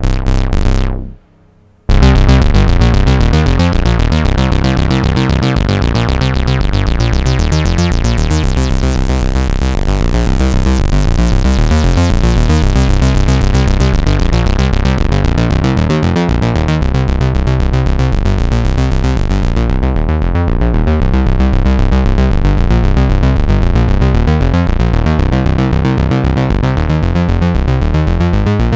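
Behringer Odyssey analog synthesizer playing a fast, repeating sequence of notes after a brief opening sound and a second of quiet. Its filter opens to brighten the tone through the middle, then closes suddenly about twenty seconds in, cutting the treble.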